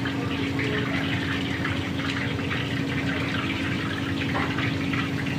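A steady machine hum at one pitch under an even rushing noise, with faint scratchy rustles on top.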